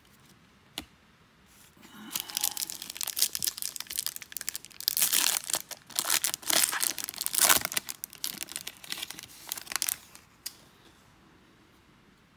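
Silver foil wrapper of a 2022 Topps Series 1 baseball card pack being torn open and crinkled by hand. A dense crackling starts about two seconds in, is loudest in the middle, and stops about ten seconds in.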